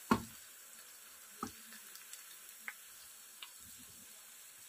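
A spatula knocking against a cooking pot four times, the first knock the loudest, as sautéed onions and garlic are scooped out of hot oil, over a faint sizzle.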